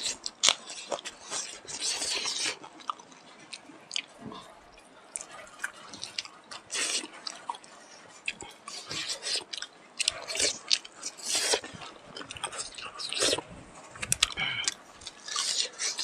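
Close-up chewing and lip-smacking of people eating smoked pork and rice by hand: irregular wet clicks, smacks and small crunches.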